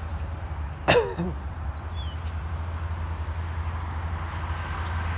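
Steady low rumble of wind on the microphone. About a second in comes one short, sharp call that drops in pitch, followed by a few thin, high chirps that fall in pitch.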